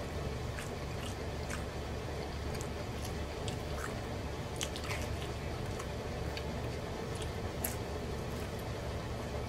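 Close-miked wet chewing and mouth clicks of a man eating a slice of pepperoni and cheese pizza, scattered sharp smacks over a steady low hum.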